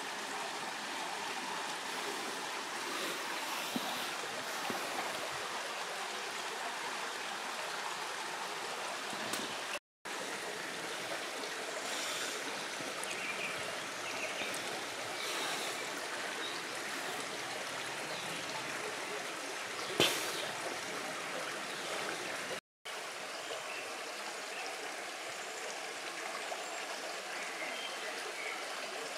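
Steady rushing and trickling of a flowing stream. The sound cuts out briefly twice, and a single sharp tick stands out about two-thirds of the way through.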